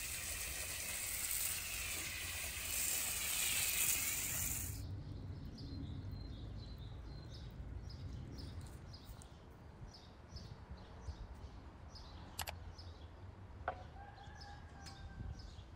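Water spraying from a garden hose, a steady hiss that cuts off abruptly about five seconds in. Then small birds chirping, several quick chirps a second, with a few sharp clicks near the end.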